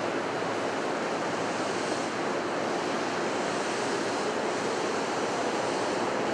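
Steady rushing rumble of an electric train at an underground station platform, even and unbroken.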